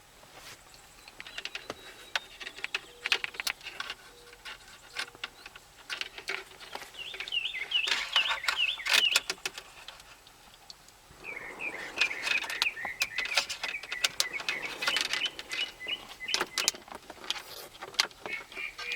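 Plastic clicks and light rattles of switch-panel parts and connectors being handled and snapped together, with two stretches of rapid, high squeaky chirps, one about seven seconds in and a longer one from about eleven seconds.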